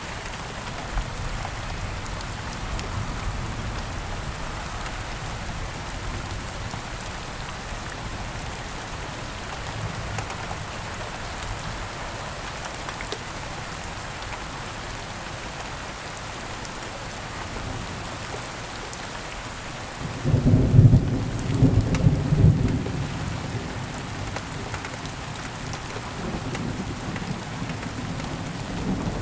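Steady rain falling, with a loud low rumble of thunder that rolls in about two-thirds of the way through and lasts a few seconds, followed by a fainter rumble near the end.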